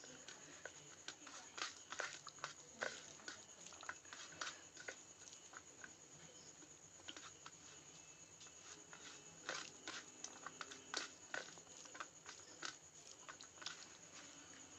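Faint, irregular soft clicks and squishes of fingers mixing cooked rice and potato curry on a steel plate.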